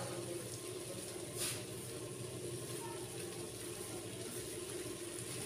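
A steel spoon scraping ground spices off a plate into a clay pot, with one brief scrape about a second and a half in, over a low steady hum.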